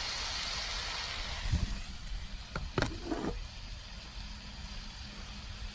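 Hamburgers sizzling on a wood-fired rocket stove over a steady low rumble, with a dull thump and then a short cluster of knocks about halfway through.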